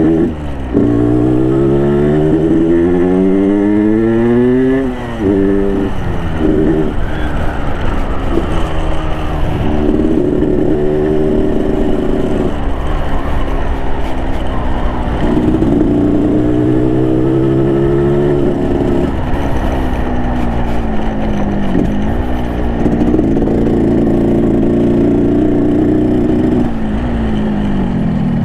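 Yamaha RX King's 135cc two-stroke single-cylinder engine on its stock exhaust, heard from the moving bike. It revs up steadily for the first five seconds, drops back sharply at a gear change, then keeps rising and falling in pitch with the throttle and shifts.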